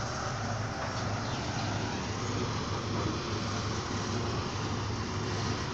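A motor vehicle's engine running steadily: an even low drone that holds the same pitch, with no revving.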